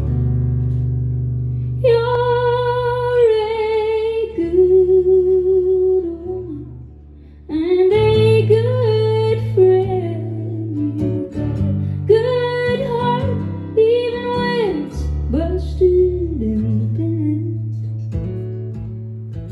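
A woman singing to her own acoustic guitar in a live solo performance. The guitar plays steadily throughout. Her voice comes in about two seconds in, in long held phrases with a slight vibrato, and there is a short guitar-only gap in the middle.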